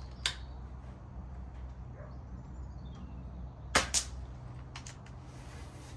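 A light click just after the start, then near four seconds in a sub-12 ft-lb air rifle fires with a sharp crack, followed about a quarter second later by a second crack as the pellet strikes the target. A few light clicks follow.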